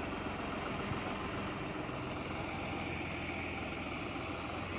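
Tractor's diesel engine running steadily as it hauls a rail coach along the track.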